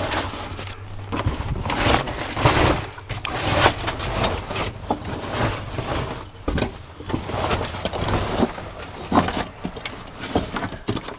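Irregular scuffing, knocking and rustling: people moving about on foot and handling bags and gear in a cramped tunnel, over a low steady hum.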